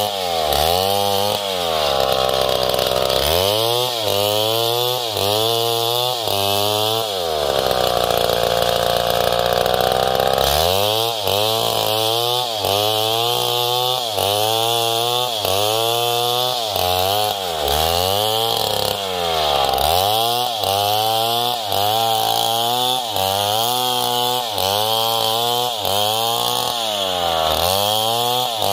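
Stihl MS070 two-stroke chainsaw ripping a coconut log lengthwise into planks. The engine pitch rises and falls about once a second as it cuts, holding steady at high revs for a few seconds in the middle.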